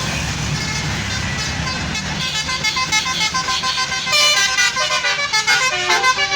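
Low rumble of a passing bus, then from about two seconds in a basuri telolet horn playing a quick tune of changing notes, loudest in the second half.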